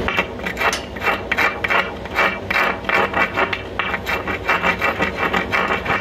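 A spring-handled chipping hammer working slag off a fresh stick weld on galvanized structural steel: quick, rhythmic scratchy metal strikes and scrapes, about four a second.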